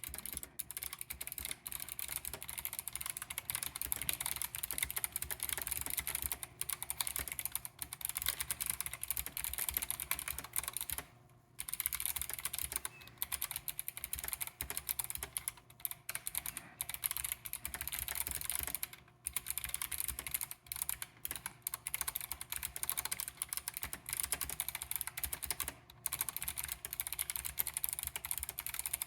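Continuous fast typing on a Keychron K8 Pro tenkeyless mechanical keyboard fitted with Kailh Box Navy clicky switches: a dense stream of sharp key clicks. The typing pauses briefly about 11 and 19 seconds in.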